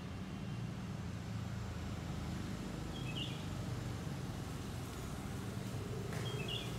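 A steady low rumble, like distant traffic or a motor, with a bird's short chirp twice: about three seconds in and again near the end.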